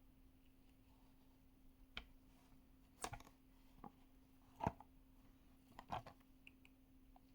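A few light clicks and taps from a Hot Wheels blister pack being handled during unboxing, about five of them spread over several seconds, the loudest just after the middle. A faint steady hum sits underneath.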